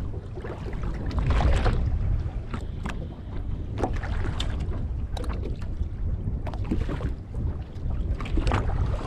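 Wind buffeting the microphone and water slapping against the hull of a small fishing boat drifting in the wind, a steady low rumble with scattered light knocks and taps.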